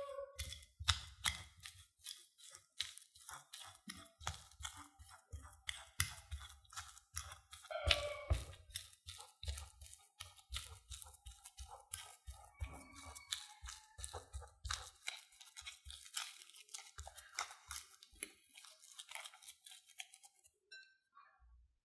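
Metal fork mashing boiled potatoes in a ceramic bowl: quick repeated clicks and scrapes of the tines on the bowl with soft squishing of the potato, stopping about a second before the end.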